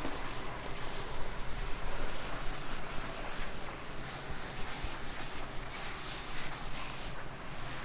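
Scratchy rubbing strokes of handwriting, a series of short scrapes one after another.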